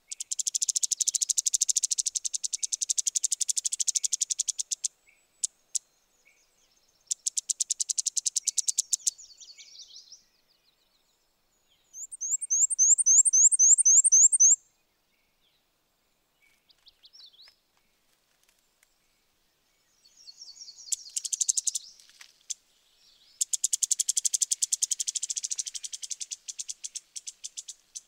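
Black-and-white warbler singing: five high, thin songs of rapidly repeated notes, each lasting two to five seconds. The middle song, about twelve seconds in, is a run of quick upslurred notes. A few faint notes fall between the songs.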